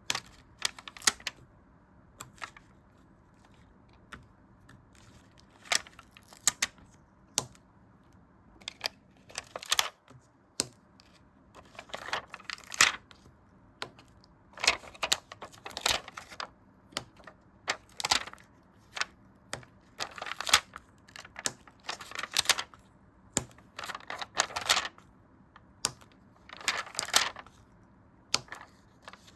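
Close-up paper and sticker handling for a journal: irregular crisp clicks, taps and short scratchy rustles, coming in clusters with brief quiet gaps.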